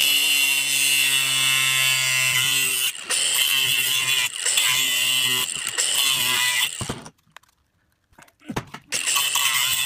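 Angle grinder running and cutting through the plastic housing of a Leupold RX650 laser rangefinder, a steady motor hum under a harsh cutting screech, for about seven seconds before it stops. After a short gap, scattered cracks and clicks as the cut plastic body is twisted apart by hand.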